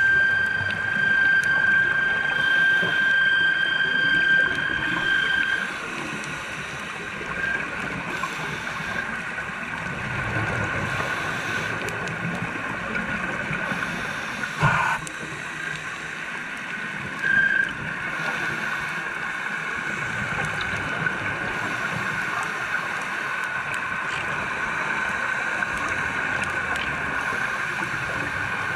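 Underwater sound through a camera housing: a steady high whine of boat engines carried through the water, over an even hiss. A second, higher tone drops out about six seconds in, and a single sharp click comes about halfway through.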